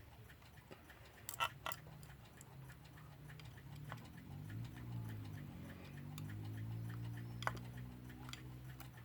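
Light clicks and taps of small metal parts of a Metamec electric clock movement being handled and worked loose. Two sharper clicks come close together about a second and a half in, and another comes near the end, over a faint low hum.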